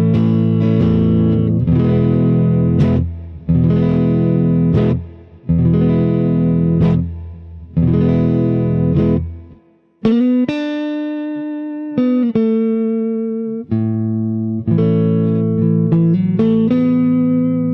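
Fender Stratocaster electric guitar on a clean amp setting, chords strummed and left to ring with short breaks between them. From about ten seconds in, longer held chords with a slight waver in pitch.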